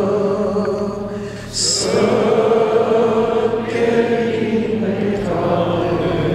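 A group of men singing a Romanian colindă (Christmas carol) together in slow, long-held notes, chant-like. There is a short break about a second and a half in before the next phrase begins.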